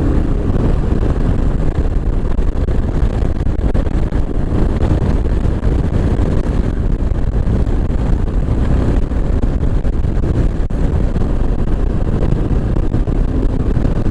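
Kawasaki KLR 650's single-cylinder engine running steadily at road speed, its carburettor fitted with a KLX needle kit, mixed with heavy wind rush on the microphone.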